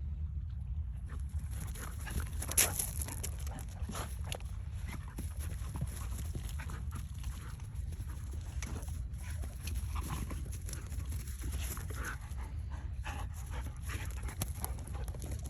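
A puppy panting and whimpering softly, with scattered small clicks and scuffles and one sharper click about two and a half seconds in, over a steady low hum.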